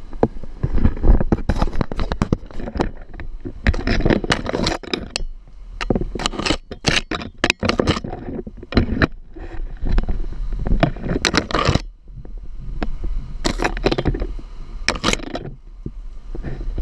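Off-road vehicle crawling along a rough forest track, heard from a camera mounted low on its side: irregular scraping, cracking and knocking as brush, branches and dirt catch against the bodywork, over a steady low rumble.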